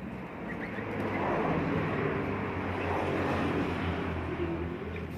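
A motor vehicle passing by, its engine hum and road noise swelling and then fading. A few faint bird chirps come through early on.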